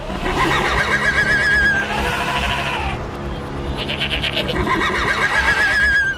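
Cartoon farm-animal calls, several overlapping bleats. A wavering high tone sounds near the start and again near the end.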